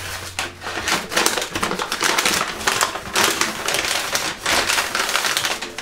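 Brown kraft paper crinkling and rustling in a dense, irregular run of crackles as it is pulled open and unwrapped from around a glass jar.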